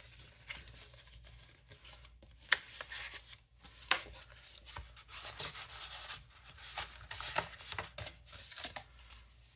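Paper and plastic packaging being handled: irregular rustling and rubbing with a few sharp clicks and taps, the loudest about two and a half seconds and four seconds in.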